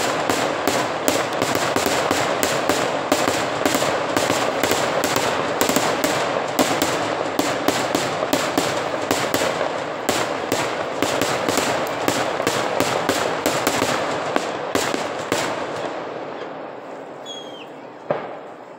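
Fireworks crackling in a dense, continuous barrage of rapid pops, loud for about fifteen seconds, then dying away. A single bang comes just before the end.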